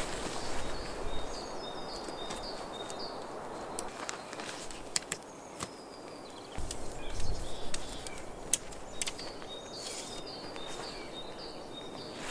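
Woodland ambience: a bird repeating short high chirping phrases near the start and again near the end, with scattered light clicks. A brief low rumble, the loudest moment, comes a little past the middle.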